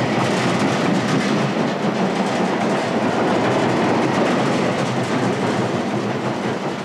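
Nemesis inverted roller coaster train running at speed along its steel track, heard from on board as a loud, steady rumbling rush.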